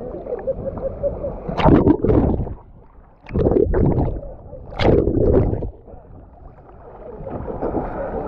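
Water splashing and sloshing against a camera held at the surface of a lake by a swimmer. Three loud splashy bursts come about a second apart in the middle, between stretches of steady, muffled water noise.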